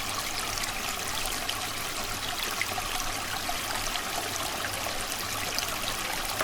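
Creek water flowing and trickling steadily.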